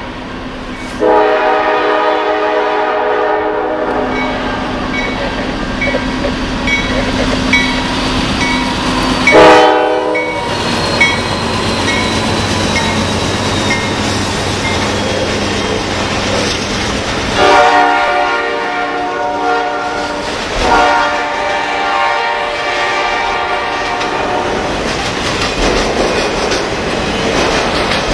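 Norfolk Southern freight locomotive's air horn sounding four blasts: a long one about a second in, a short one near ten seconds, then two long ones back to back past the middle. Between and under the blasts, the steady rumble and rail clatter of the freight train and its autorack cars rolling past.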